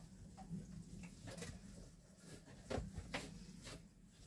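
Faint handling sounds: a few soft knocks and rustles as a large towel is pushed down into the plastic spin basket of a portable twin-tub washer.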